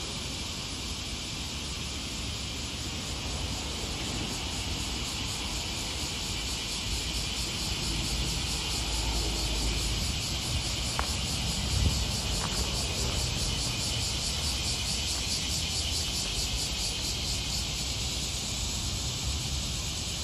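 Steady chorus of insects chirring outdoors, a high, finely pulsing hiss. A low rumble rises in the middle, with one brief louder knock just before the end of it.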